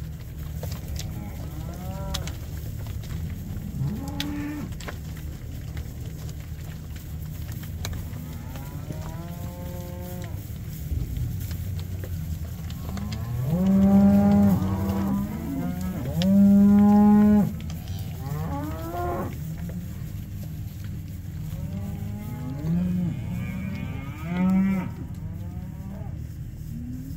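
Bred heifers mooing, about a dozen calls from several animals. The two loudest and longest calls come about halfway through, over a steady low background noise.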